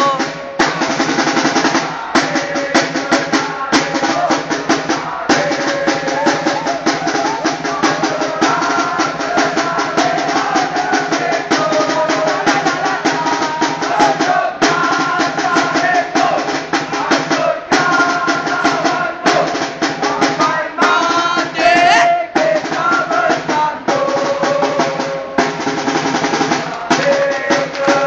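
Football supporters chanting in unison over rapid, continuous drumming with snare rolls and bass drum beats.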